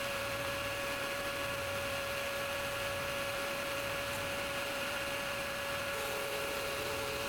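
Powermatic 15-inch thickness planer running steadily: a constant motor whine over an even rush of noise.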